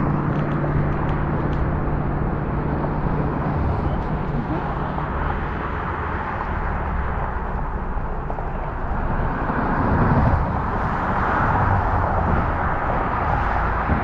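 Vehicle on the move: steady road and engine noise, with the engine note rising and falling briefly about two-thirds of the way through.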